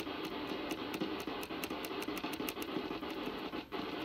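Drake R4B receiver's audio hissing with band static and faint rapid ticks, which stop a little over halfway through. Near the end the audio briefly cuts off as the noise-blanker line is grounded, quieting the IF.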